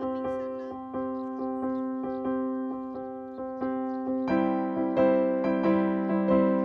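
Background piano music: single notes struck at an even, gentle pace, each fading before the next. It turns fuller and louder, with lower notes added, about four seconds in.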